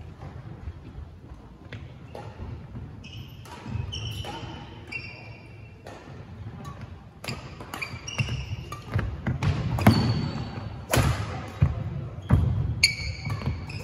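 Thuds and sharp knocks of play in a singles racket-sport match, mixed with short high squeaks. The knocks come thicker and louder from about seven seconds in.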